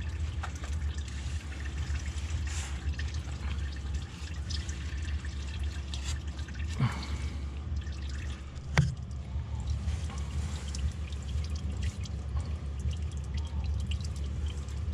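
Used engine oil dripping and trickling from the drained sump into a drain pan, over a steady low hum, with one sharp click about nine seconds in.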